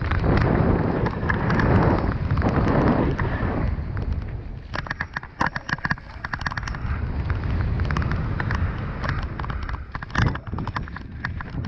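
Mountain bike descending a dry, rocky gravel trail: tyres crunching over loose stones with a low rushing of wind on the microphone, then from about five seconds in a run of sharp clacks and rattles as the bike hits rocks.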